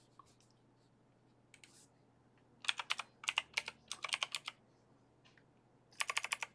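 Plastic Blu-ray case being handled and opened: quick runs of sharp plastic clicks, three close bursts from about two and a half seconds in and another burst near the end.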